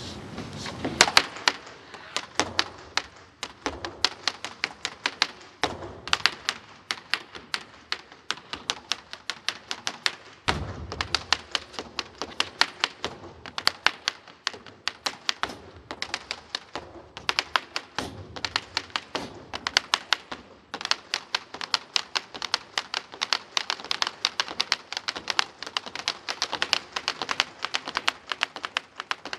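Rapid, rhythmic clacking and stomping on a wooden stage floor from a boleadoras routine: swung bolas and booted footwork striking the boards several times a second, with a few short pauses and a heavier thud about ten seconds in.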